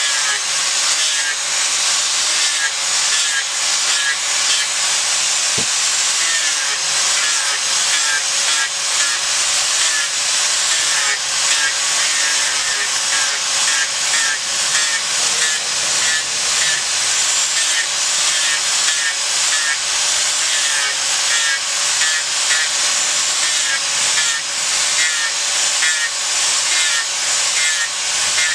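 Electric angle grinder running steadily, its disc grinding a small block of monkeypod wood: a continuous loud hiss over the motor's whine.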